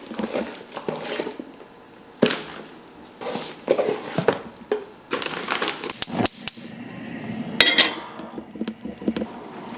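Pots, pans and utensils knocking and clinking: a run of irregular separate clanks and clicks with short scraping or rustling stretches between them.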